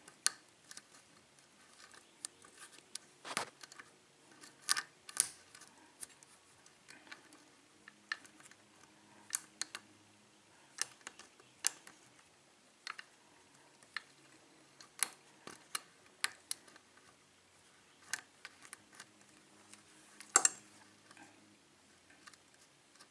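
Irregular small metal clicks and ticks from a lock pick working the pins of an Ilco pin-tumbler lock cylinder with a Yale keyway, under tension from a tension wrench. The clicks are scattered, with a few sharper ones about five seconds in and again near the end.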